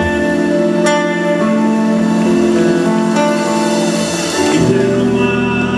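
Live music led by a guitar playing sustained chords. Deeper low notes join in about four and a half seconds in.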